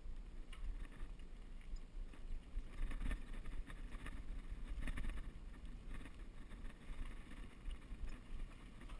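A mountain bike riding a rough dirt trail: wind rumble on a bike-mounted action camera's microphone, with tyre noise and the rattle of the bike over the ground, and sharper clattering knocks about three and five seconds in.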